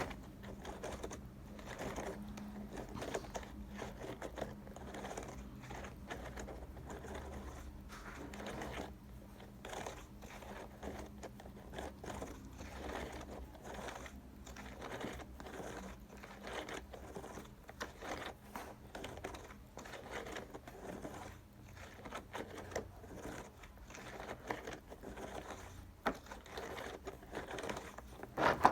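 Silicone pop-it fidget toy being pressed and handled: a quick, irregular run of soft pops and clicks.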